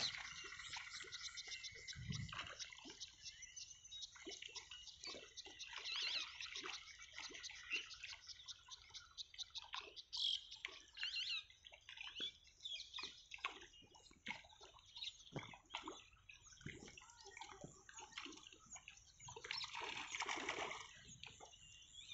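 Faint, irregular small splashes and patter of water on a netted fish pond's surface, with a longer splashy stretch near the end.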